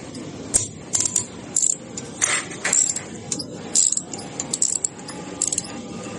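Metal hand tools and engine parts clinking and tapping against each other in a dozen or so irregular sharp strikes, as spanners work on a motorcycle engine being taken apart.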